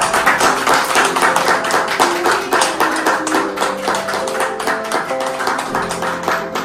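A small group clapping by hand, a dense patter of claps over background music.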